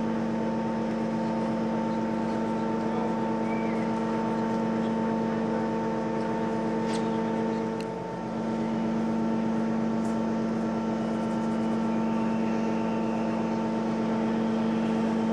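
Steady machinery hum of the ferry MV Armorique, a drone of several constant tones with a few faint clicks. It dips briefly about eight seconds in.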